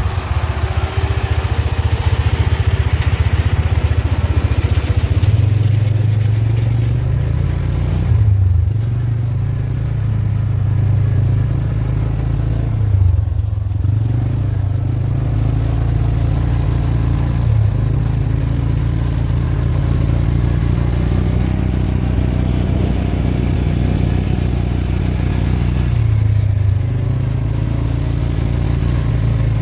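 Kubota M7040 tractor's diesel engine running steadily under load while it pulls a Case 8430 baler, with some clatter. The engine note dips briefly a few times.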